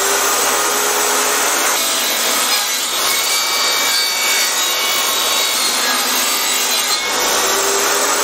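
Portable jobsite table saw running steadily while it cuts a sheet of plywood fed through it at an angle for a diagonal cut. The noise of the cut holds a faint steady whine from the blade.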